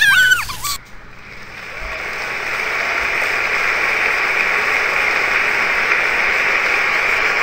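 A song cuts off just under a second in, then crowd applause and cheering fades in over about two seconds and holds steady.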